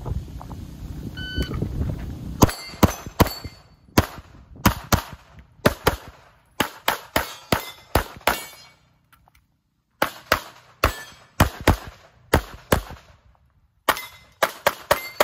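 An electronic shot timer beeps about a second and a half in, then a pistol fires about thirty rapid shots in quick pairs and strings, with brief pauses while the shooter moves or reloads.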